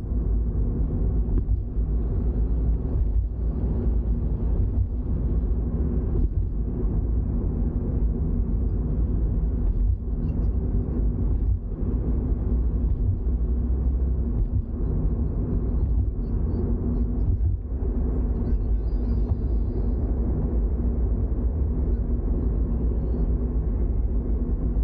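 Toyota GR86 with its flat-four engine, driving at a steady pace: continuous engine and road noise with a low rumble.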